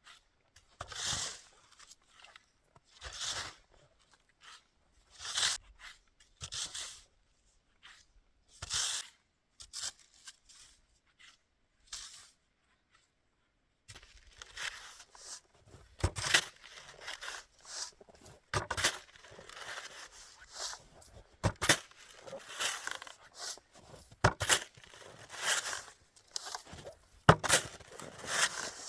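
Snow crunching: separate crunchy bursts about every two seconds, then, after a short break, denser crunching and scraping with sharp clicks.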